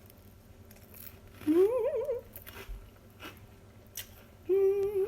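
A woman singing two short wordless notes while eating: a rising, wavering note about a second and a half in, then a steady held note near the end, sung in delight at the taste of the food.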